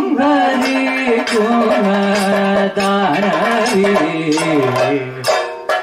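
Kathakali music: a singer holds a long, wavering, ornamented sung line over chenda and maddalam drumming. A little past five seconds in the voice stops and the drums carry on alone.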